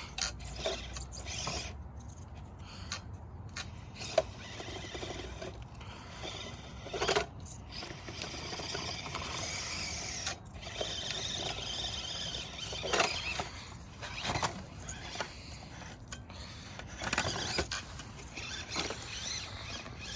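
Axial SCX24 1/24-scale RC crawler driving in short stop-start bursts, its small motor and gears running, with scraping and clicking as the tyres and body work over the terrain.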